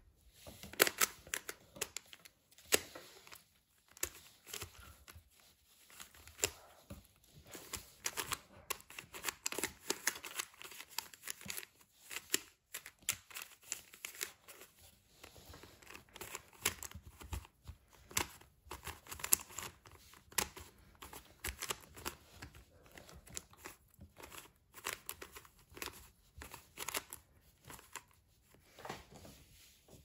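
Plastic Rubik's cube covered in Lego-style bricks being turned by hand: rapid, irregular clicks and clacks of the layers rotating and the bricks knocking together, with a few short pauses.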